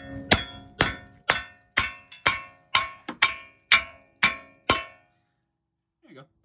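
A heavy hammer striking the rust-seized front wheel hub of a Land Rover Discovery II to knock it loose. About a dozen blows come roughly two a second, each a ringing metal clang, and they stop about five seconds in.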